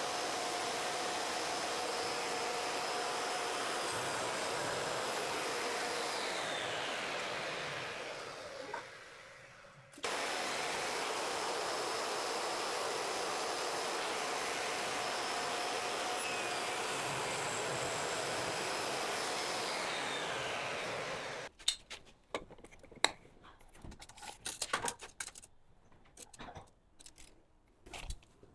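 A power tool's motor running steadily, winding down about eight seconds in, starting up again at full speed a couple of seconds later, then stopping. Its stop is followed by a series of scattered clicks and knocks, like work being handled.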